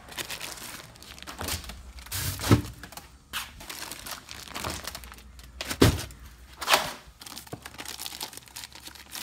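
Zip-top plastic bags full of bait fish crinkling as they are handled in a plastic bucket, with a few dull knocks as the bags shift and bump the bucket.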